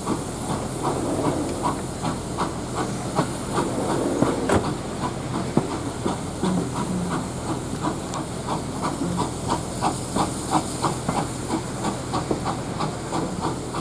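Port Talbot Railway 0-6-0 saddle tank No. 813 working a train, heard from a carriage window: a steady hiss of steam with regular chuffs, about two to three a second. One sharp click about four and a half seconds in.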